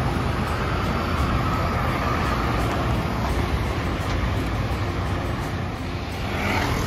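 Road traffic: cars and other vehicles driving past on a busy street, a steady mix of engine rumble and tyre noise.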